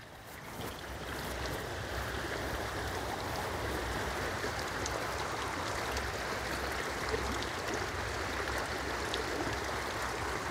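Steady rush of running water, fading in over the first couple of seconds and then holding level.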